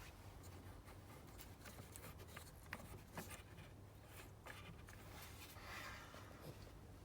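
Faint scratching with scattered light clicks over a low steady hum.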